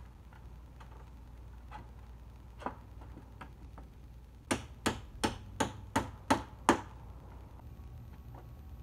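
Hammer blows on the wooden playset frame: a few light knocks, then, about halfway through, a run of seven sharp strikes at roughly three a second.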